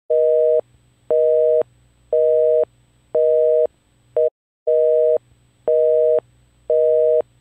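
Telephone busy signal: a steady two-tone beep sounding for about half a second, once a second. About four seconds in, one beep is cut short and there is a brief gap before the pattern resumes.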